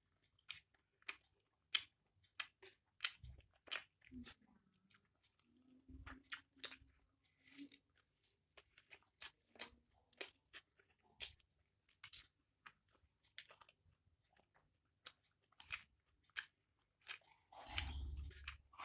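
Close-miked mouth chewing chow mein noodles: wet clicks and smacks at an uneven pace of about two a second. Near the end comes a louder, longer noisy sound lasting about a second.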